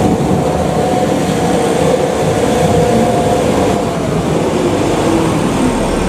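Farm telehandler's diesel engine running hard as it works a bucket of muck and straw, the engine note shifting as it moves.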